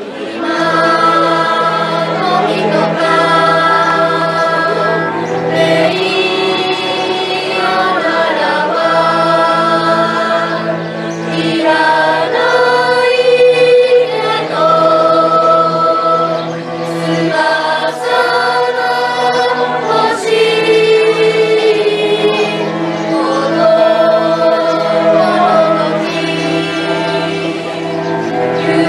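A choir singing a song in phrases a few seconds long, with two cellos bowing a held low accompaniment beneath.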